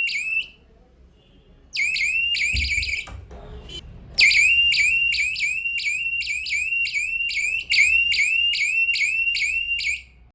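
Electronic alarm of a home-built door lock security circuit going off: a shrill, rapidly repeating rising chirp, about three a second. It stops and restarts twice, sounding for about a second the first time it returns and for about six seconds the second time. A thump and a couple of clicks sound in the second pause.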